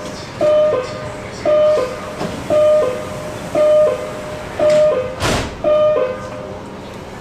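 Guangzhou Metro door-closing warning beeper sounding a short tone that drops in pitch at its end, about once a second, seven times. A single loud thump about five seconds in as the doors shut.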